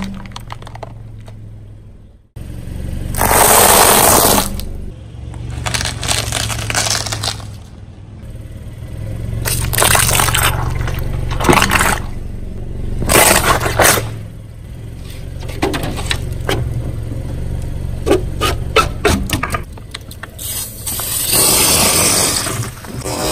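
A car tyre rolling slowly over objects and crushing them one after another: several short crunching, scraping bursts a few seconds apart as plastic and rubber toys are squashed. Near the end a plastic bottle of fizzy soda bursts under the tyre, and the drink sprays out with a long hiss, over the car engine's low running.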